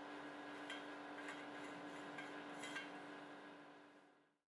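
Metal filler cap being twisted by hand in a steel frame-tube fuel tank: a few faint light metallic ticks and clinks over a low steady hum, fading out near the end.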